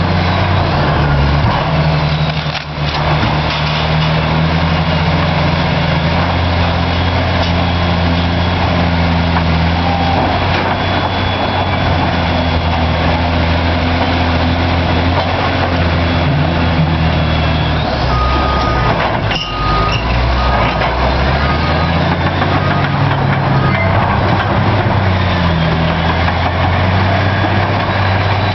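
Caterpillar D9T bulldozer's C18 diesel engine running hard, its pitch rising and falling as it works, with brief dips about 3 s and 19 s in. A few short high beeps sound about two-thirds of the way through.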